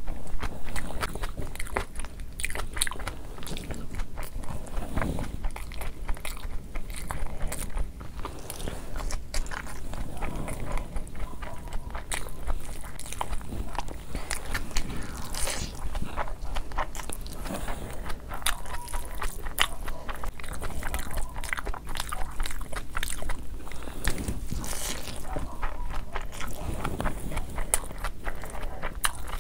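Close-miked chewing and mouth sounds of a person eating biryani by hand: steady wet chewing and smacking with many small clicks.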